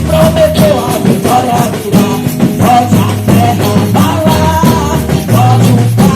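Live gospel band music: a sung melody over a steady drum beat and bass line.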